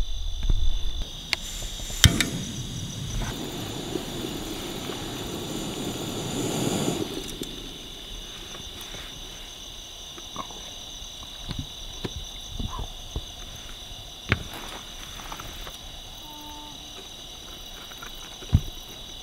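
Crickets chirping steadily in the background, with a rushing hiss that builds for about five seconds from two seconds in, then scattered clinks and knocks as a Jetboil camp stove's cup and lid are handled.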